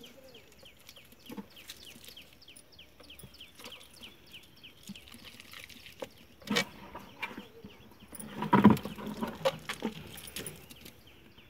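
Hands squeezing ripe bananas into a drum of panchagavya slurry, wet squelching and splashing, loudest about six and a half and eight and a half seconds in. A small bird chirps in the background, a quick repeated series of short falling notes.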